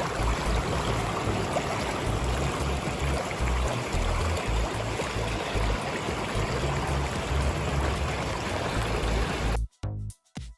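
Background music with a heavy bass line under a steady rush of noise. About nine and a half seconds in, the noise stops abruptly and a choppy electronic dance beat plays on alone.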